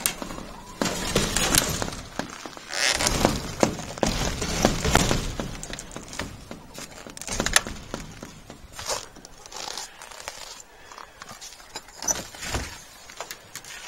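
Irregular knocks, scrapes and crunching as a door is worked and someone walks out over snow, with sharp clicks scattered throughout, busiest in the first half.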